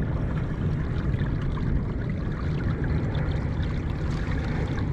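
Steady rushing and trickling of water against a kayak hull.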